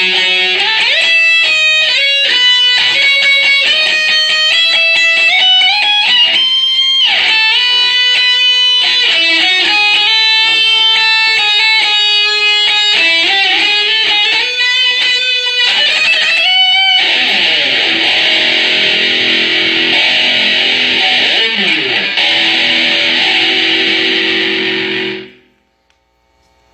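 Electric guitar playing a run of single notes, many sliding up or down in pitch. About two-thirds through it settles into a long held, thick sustained sound, which cuts off abruptly near the end.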